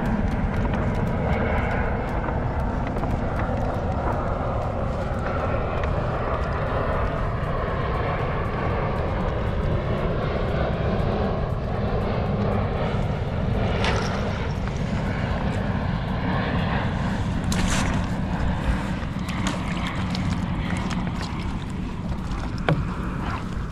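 Steady rumbling wind noise on the microphone over open, choppy water, with a few sharp clicks about two-thirds of the way through.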